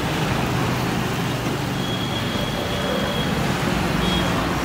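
Jalebi frying in a kadai of hot oil: a steady sizzling hiss as batter is piped in spirals into the oil, over a low rumble.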